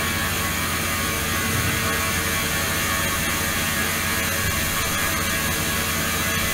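Ultrasonic water-tank apparatus running with water flowing in through a tube: a steady low hum and hiss with many thin, high steady tones over it.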